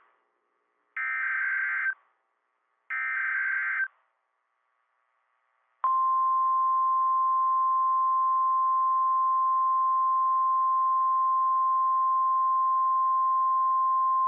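NOAA Weather Radio emergency alert signal: two short screeching digital SAME header data bursts about two seconds apart. Then, about six seconds in, the steady single-pitch 1050 Hz warning alarm tone starts and holds, announcing that a warning message follows.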